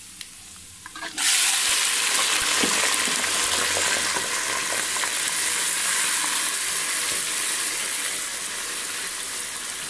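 Raw chicken pieces going into hot ghee with browned onions: a faint sizzle jumps to a loud, steady frying hiss about a second in. The hiss eases slowly as the meat is stirred with a slotted spoon.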